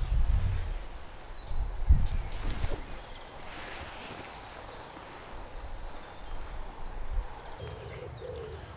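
Outdoor ambience: low wind buffeting on the microphone near the start and again around two seconds in, with a few soft rustles and faint, short bird chirps.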